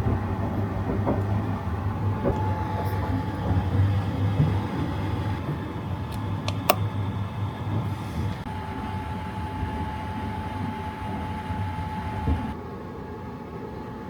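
Sunrise Izumo sleeper train running, heard from inside a compartment: a steady low rumble, with a few sharp clicks about halfway through. It becomes quieter shortly before the end.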